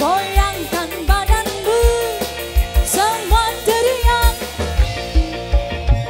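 Live dangdut music: a woman singing a sliding, wavering melody over a band with a steady low drum beat. The voice drops out about four and a half seconds in, leaving the band playing.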